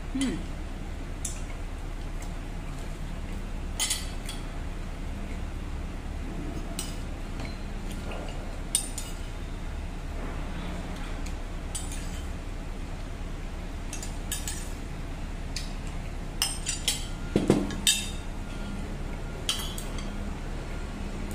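Metal spoon and fork clinking and scraping against a ceramic plate now and then, with a quick cluster of clinks about three-quarters of the way through, over a steady low hum.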